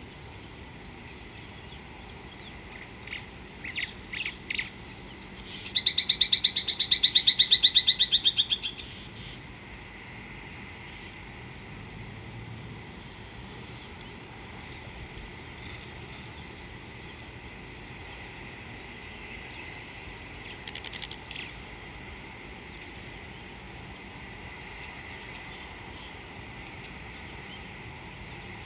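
Insects chirping steadily, about one high chirp a second. A few seconds in, a bird gives some short calls and then a loud, rapid trill lasting about three seconds.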